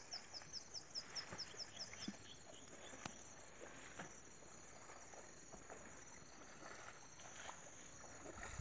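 Faint rural outdoor ambience: a steady high insect drone, with a rapid run of short high chirps, about four or five a second, that fades out about two seconds in. A few faint clicks follow.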